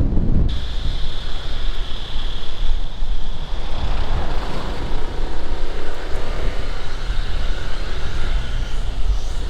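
Motor scooter ride: engine and wind rumble on the microphone, with a steady high whine joining about half a second in.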